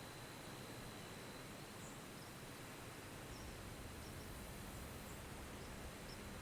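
Soft, even hiss of rain with short high bird chirps scattered through it and a thin steady high tone.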